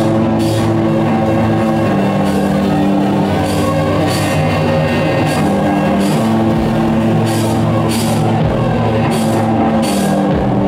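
A live band playing loud, dense rock: sustained droning chords under repeated crashing hits, with no let-up.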